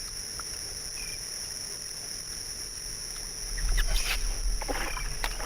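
Steady high-pitched insect chorus, several shrill tones held at once. About three and a half seconds in, a low rumble sets in with splashes and knocks.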